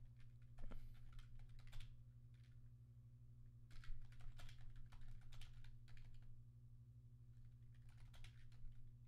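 Faint typing on a computer keyboard in three short bursts of rapid key clicks, over a steady low hum.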